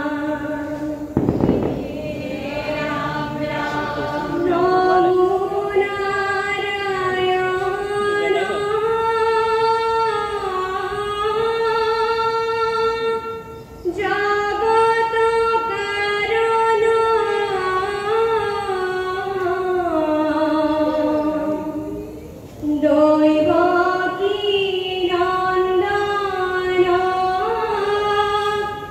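Dihanam, Assamese devotional chanting: a group of young women and men singing in unison without instruments, in long held notes that break briefly for breath about 14 and 22 seconds in. A single low thump sounds about a second in.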